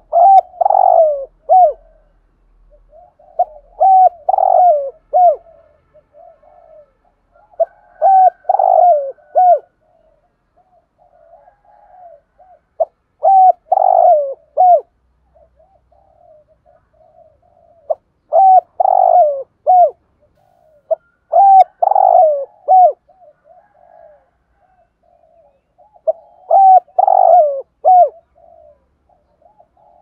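Spotted dove cooing in the 'thúc gù' style: about seven loud phrases of several coo notes each, a few seconds apart, with soft murmured coos between them.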